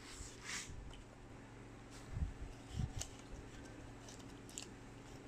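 Soft handling noises from wiping flux off a freshly bonded COF ribbon with a tissue: a short rustle, two low bumps a little after two seconds, a light click and a few faint scratches, over a steady low hum.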